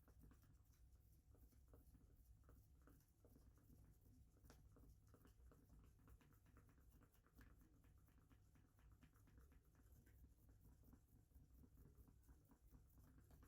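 Near silence, broken by faint, irregular light clicks and scratches, several a second, over a low steady hum.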